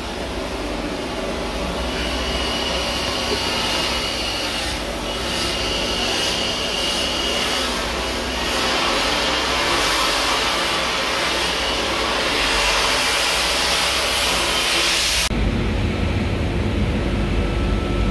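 Steady loud hissing rush from hot work throwing sparks in a ship's steel compartment, with a faint high whine coming and going in the first half. About fifteen seconds in it cuts off abruptly, giving way to a low, steady rumble.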